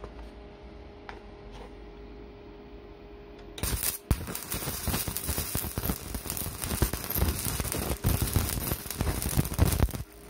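Electric arc welding: after a few seconds of steady hum, the arc strikes and crackles loudly and densely for about six seconds, then stops suddenly near the end. A steel washer is being welded onto the stub of a snapped brake-caliper bleed nipple.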